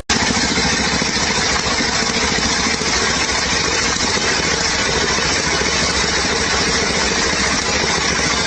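An engine or machine running steadily, with a dense hiss over it.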